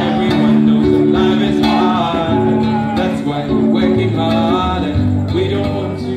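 Live acoustic guitar playing held chords that change every second or so, with a man singing along into a microphone.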